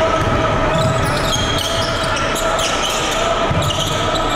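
Basketball being dribbled on a hardwood gym court, with repeated low thumps of the bounces in the echo of a large gym, over spectator chatter.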